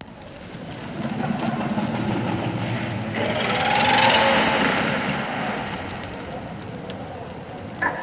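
Sound effect: a rushing noise with a low rumble that swells to a peak about four seconds in and then fades away. Just before the end a different sound cuts in with steady high tones.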